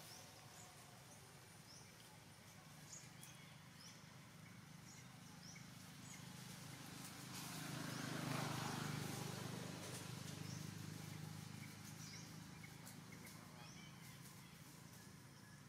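Faint outdoor ambience with scattered short, high, rising bird chirps. About halfway through, a rushing noise with a low hum swells for a few seconds and then fades.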